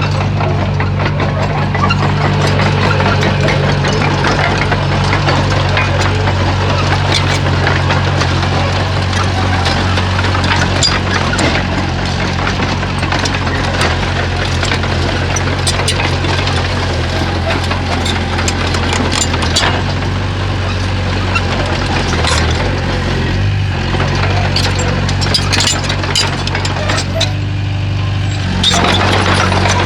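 Komatsu bulldozer's diesel engine running steadily, with frequent short clanks and knocks over it. The engine note shifts near the end.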